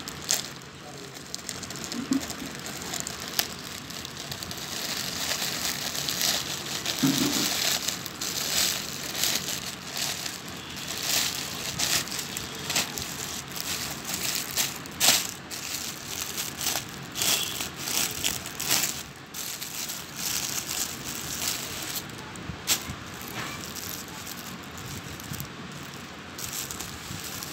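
Plastic packaging crinkling and rustling in irregular crackles as a polythene courier mailer is torn open and a clear plastic-wrapped garment is unwrapped.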